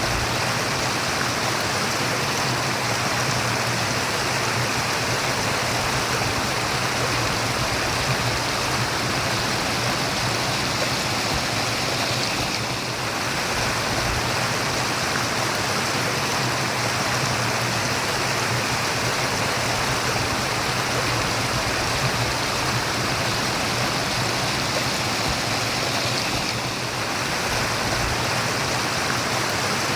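Steady murmur of running stream water, an even rushing and babbling with no pauses.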